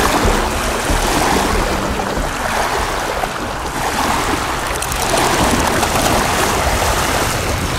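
Lake water lapping and splashing in the shallows as a dog wades through it, a steady rushing wash of water.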